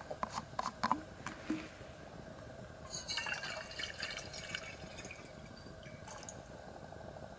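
A few light clicks, then water pouring from a plastic Nalgene bottle into a stainless steel mug for about three seconds, stopping about six seconds in.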